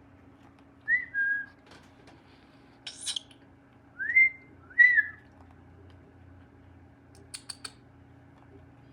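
Young cockatiel giving short whistled chirps that slide up and down, a few of them over several seconds with one harsher chirp among them. Three quick sharp clicks near the end, over a faint steady hum.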